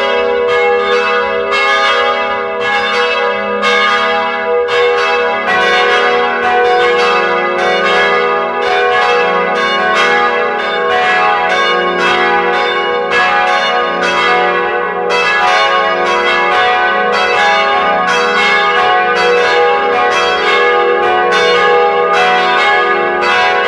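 Church bells ringing in a continuous peal, bells struck one after another about twice a second, their overlapping tones ringing on between strikes.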